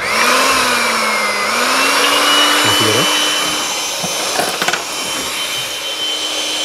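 Electric hand mixer switched on and running, its wire beaters whipping double cream in a ceramic bowl. The motor whine starts suddenly, dips slightly in pitch, then settles to a steady tone from about two seconds in.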